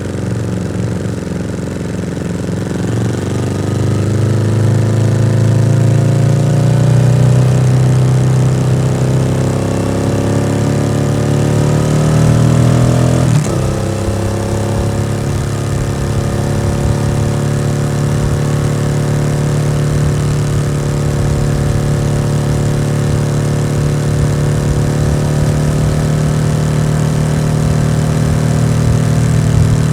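Yamaha XSR700's 689 cc parallel-twin engine through an SC-Project exhaust, revs climbing for several seconds under acceleration. The pitch drops sharply at a gear change about thirteen seconds in, then the engine runs at steady revs.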